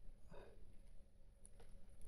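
Near silence: room tone with a faint low hum, and one faint brief soft sound about half a second in.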